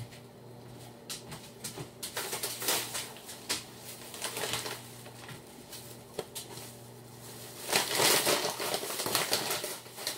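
Plastic grocery bag rustling and crinkling with small knocks as groceries are pulled out and handled, loudest from about eight to nine and a half seconds in.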